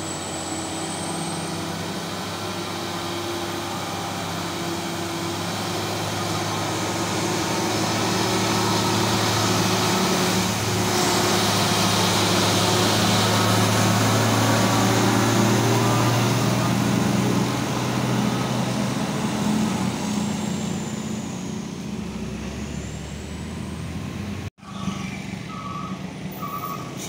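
Heavy diesel truck engine running as the truck passes, growing louder to a peak about halfway and then fading. After a sudden cut near the end, a string of short, evenly spaced beeps.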